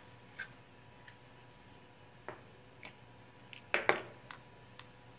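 Handling sounds of a DJI Osmo Pocket gimbal camera being slid out of its plastic protective case: scattered light clicks and rubbing, with a louder pair of clicks about a second before the end.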